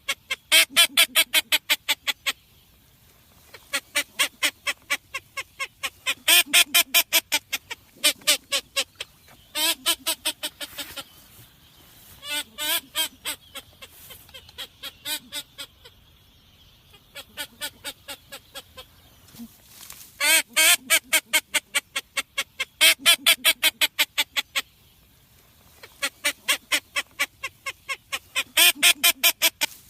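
Blue-winged teal calling: rapid runs of short quacks, about seven a second, in repeated bursts of one to two seconds with short pauses between, some loud and some softer.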